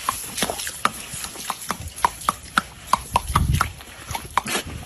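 A quick, uneven series of sharp clicks or taps, about four a second.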